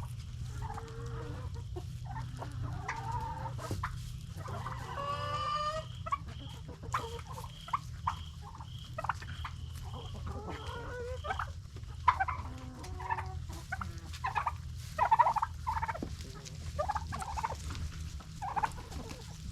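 A flock of chickens clucking and calling while feeding, with turkeys gobbling among them, over a steady low hum.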